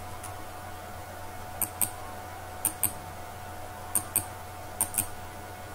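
Computer mouse button clicked repeatedly, about once a second, each click a quick press-and-release pair, starting about a second and a half in. This is the on-screen zoom button being clicked to change the page's magnification. A faint steady hum sits underneath.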